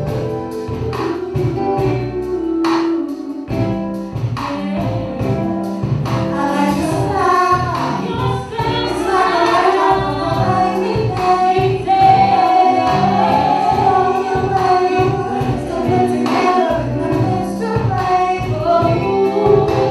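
Live band music with a woman singing lead, over a steady beat.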